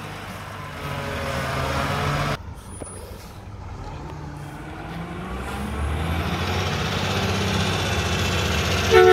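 Mack garbage truck's diesel engine running, with the overall noise dropping off abruptly about two seconds in. From about five seconds in the engine rumble builds as the truck pulls away, with a faint rising whine.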